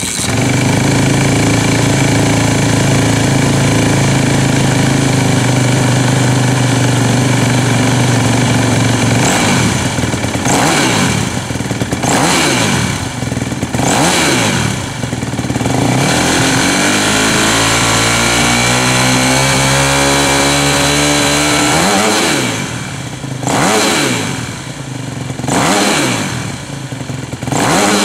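2012 Yamaha YZ 250 F's single-cylinder four-stroke engine running through a LeoVince X3 stainless steel/titanium full exhaust system. It idles steadily for about nine seconds, then is revved in a run of quick throttle blips, one longer rev that climbs and falls back, and a few more blips near the end.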